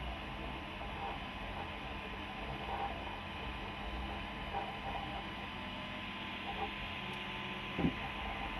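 Prusa i3 3D printer running mid-print: its cooling fans whir steadily while the stepper motors give short whines as the print head moves, with one brief louder sweep just before the end.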